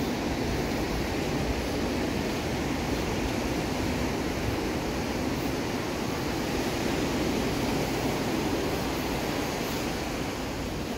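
Ocean surf breaking and washing up a sandy beach, a steady unbroken rush.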